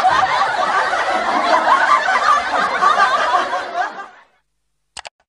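Several people laughing and snickering, fading out about four seconds in. Two quick clicks follow near the end.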